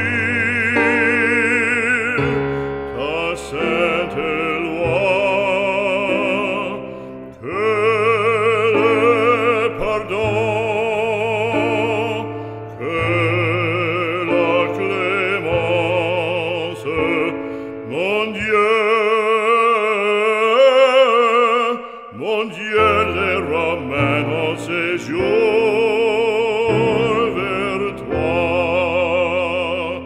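Background music: operatic classical singing with wide vibrato over held low accompaniment notes.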